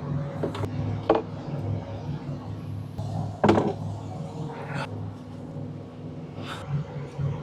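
Clunks and knocks of a semi truck's air filter housing and its fasteners being worked on by hand: a handful of sharp knocks spread through, the loudest about three and a half seconds in. A steady low hum runs underneath.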